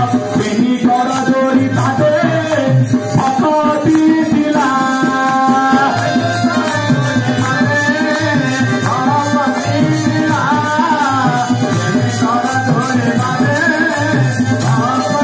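Odia devotional song (bhajan): a singing voice carries a melody over keyboard accompaniment with a steady drum rhythm.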